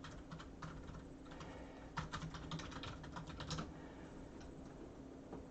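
Faint light clicks and taps from handling cards and their plastic packaging, with a quick run of them about two to three and a half seconds in.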